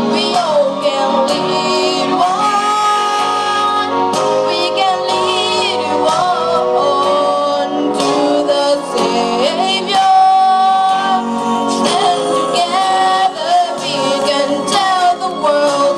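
Sung gospel melody over steady instrumental accompaniment, a hymn-like church song.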